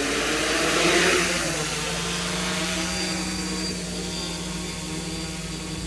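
Homemade DJI F450 quadcopter's brushless motors and propellers throttling up for take-off, with a loud rush peaking about a second in, then settling into a steady buzz with several tones as it lifts off.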